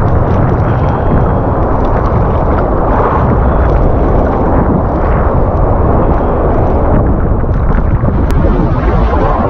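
Steady, loud rush of surf waves sloshing around the wader and against the camera held just above the water, with wind on the microphone.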